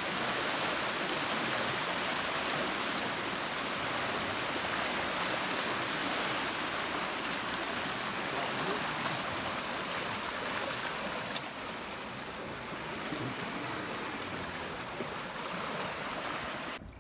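Fast-flowing water rushing and churning past a concrete channel edge, a steady hiss of running water. A single sharp click sounds about eleven seconds in, and the water noise drops away abruptly near the end.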